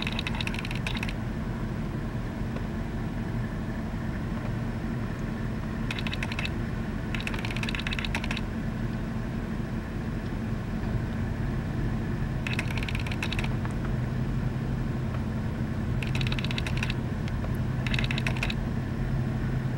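Camera lens motor whirring and ticking in short bursts a second or so long, about five times, over a steady low hum.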